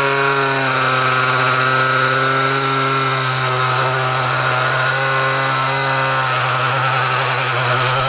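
Oscillating multi-tool (vibratory cutter) running steadily as it cuts through the Defender's plastic front bumper panel, a loud even buzz that holds one pitch throughout.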